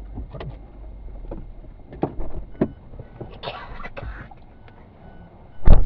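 Car cabin noise while driving: a steady low rumble with scattered knocks and a short rustle, then one loud thump near the end.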